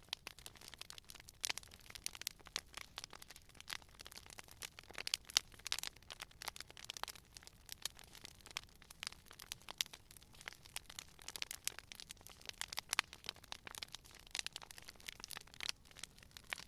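Wood fire crackling: a steady stream of irregular sharp pops and snaps from burning logs over a soft hiss.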